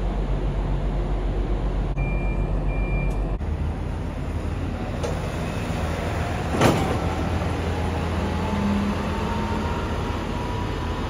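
Steady low machinery hum from a docked ferry and the pier around it. Two short high beeps come about two seconds in, a sharp knock follows around the middle, and after it a faint whine rises slowly.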